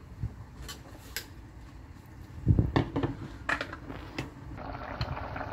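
A few scattered clinks and knocks from a covered cooking pot with a glass lid, with one dull thump about two and a half seconds in. Near the end a steady hiss of the fish curry simmering under the lid comes up.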